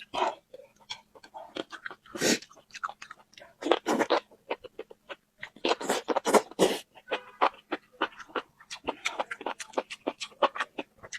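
Close-miked chewing and crunching of food, in irregular clusters of crisp crunches with louder bites every second or two.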